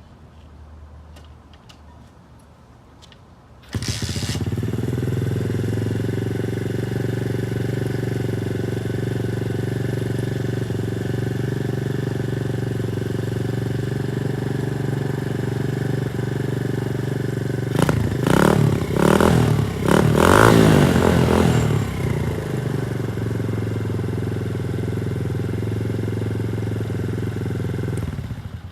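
Coolster XR 125cc pit bike's single-cylinder four-stroke engine: a few faint clicks, then it catches suddenly about four seconds in and idles steadily. About two thirds of the way through it is revved in several short blips, then settles back to a steady idle, running cleanly with no sign of trouble.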